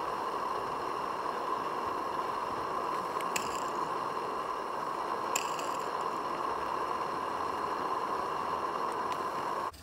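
Steady hiss from a Roundhouse 'Tom Rolt' live-steam garden-railway locomotive standing in steam, with two brief clicks about two seconds apart near the middle.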